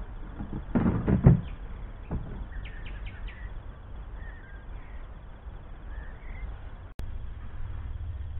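A few knocks and thumps from handling garden gear about a second in, then faint short bird chirps over a steady low rumble.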